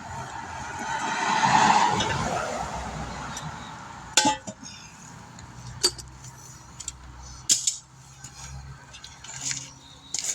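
A vehicle passes by, its tyre and engine noise rising and then fading over about three seconds. Afterwards come several sharp metallic clinks, spaced a second or two apart.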